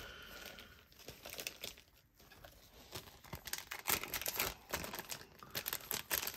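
Small clear plastic zip bags crinkling and rustling as they are handled, in irregular crackles that get busier about halfway through.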